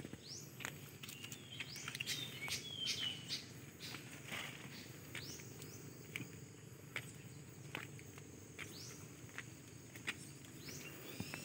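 Birds chirping with many short high calls, some sweeping up and some down, over a steady high insect drone. A few faint taps of steps sound on the concrete path.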